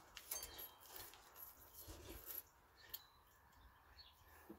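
Faint, scattered clicks and clinks of tools and parts being handled while cleaning up around a seized brake caliper, sparse and mostly in the first two seconds or so.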